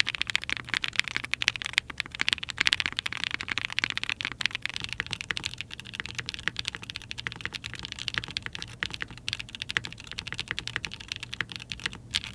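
Continuous fast typing on a mechanical keyboard fitted with Dangkeebs Strawberry Milk Ice linear switches, lubed with 205g0: a dense, unbroken run of keystroke clacks.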